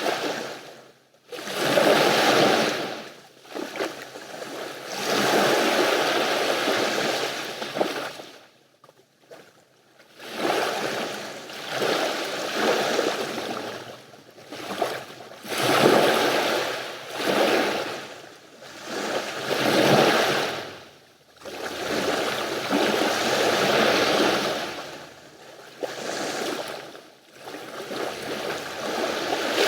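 Sea waves breaking and washing up the beach, a surge about every two seconds, with a near-quiet lull about a third of the way through.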